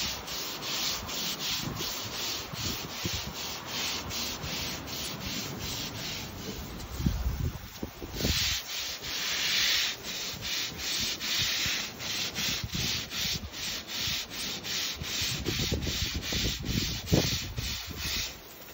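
Stiff-bristle deck brush on a pole scrubbed hard back and forth over Dekorator Voyage composite decking to work dirt out of the boards, in quick strokes about three a second. A little past eight seconds in there is a longer unbroken stretch of scrubbing.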